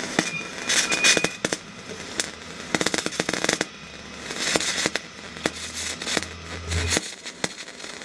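Eastwood MIG250 spray-transfer MIG welding arc on steel plate: a steady hiss with irregular crackles and pops. The smooth hiss is the sign that the wire is spraying properly.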